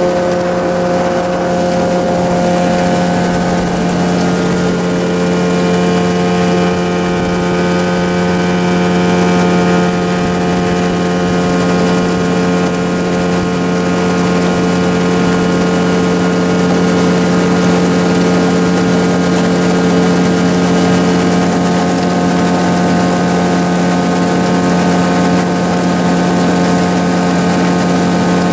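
Motorboat engine running at a steady cruising speed, heard from aboard the boat as a loud, even drone.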